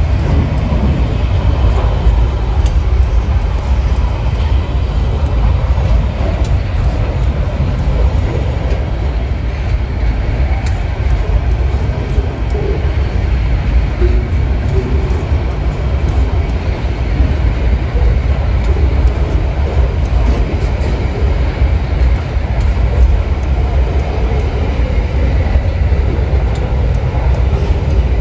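Freight train rolling past, a loud, steady rumble of wheels on rails.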